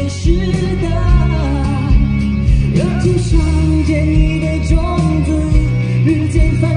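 A male singer's clear voice singing a song live into a microphone over full instrumental backing.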